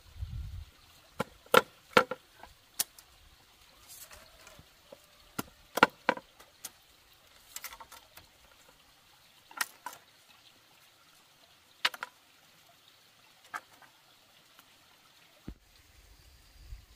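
A dozen or so sharp knocks and clicks at irregular intervals with short quiet gaps between them; the loudest come about two seconds in and near six seconds.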